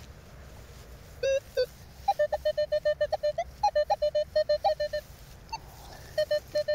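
Metal detector beeping over a buried target: rapid short beeps, about six or seven a second, at a steady mid pitch with a few higher blips. They start about a second in, pause briefly near the end, then resume.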